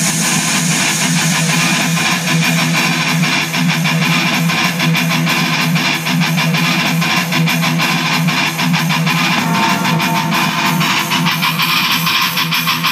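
Loud guitar music, with fast strumming, played through a Rockford Fosgate Prime R1675 three-way coaxial door speaker.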